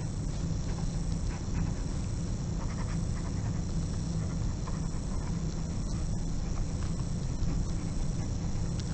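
Pen writing on lined paper in an exercise book: faint, short scratching strokes as words are written out, over a steady low hum.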